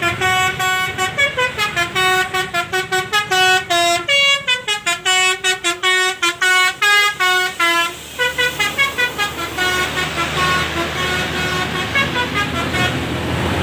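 A tour bus's basuri telolet horn, a multi-tone musical air horn, playing a fast melody of short notes. About eight seconds in the notes turn fainter and a low vehicle rumble comes up underneath.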